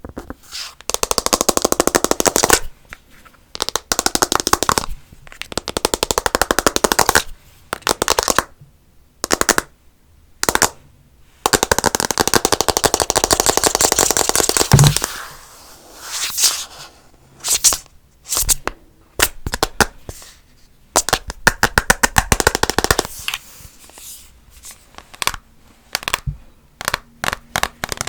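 Very fast tapping on hard objects in rapid rolls lasting one to three seconds each, separated by short pauses.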